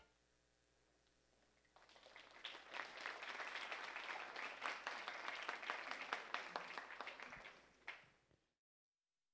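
Audience applauding, fairly faint, with many separate claps; it starts about two seconds in and dies away near the end.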